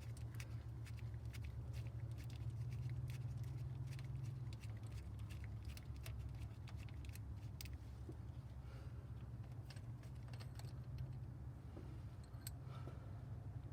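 Quick, irregular light clicks of hand tools working on a cylinder head bolt, thick in the first half and sparser later, over a steady low hum.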